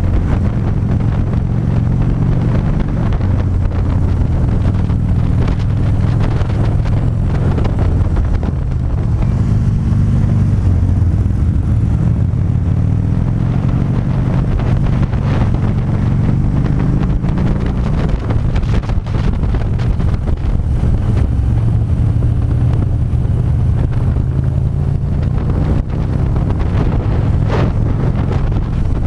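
Harley-Davidson V-twin engine running under way, heard from the moving bike, its note rising and falling with the throttle through the curves, with steady wind noise buffeting the microphone.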